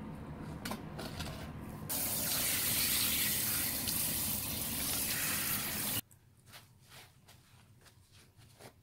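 Tap water running and splashing over a fish being rinsed on a plastic cutting board. It starts about two seconds in and cuts off suddenly about four seconds later. Faint clicks come before and after it.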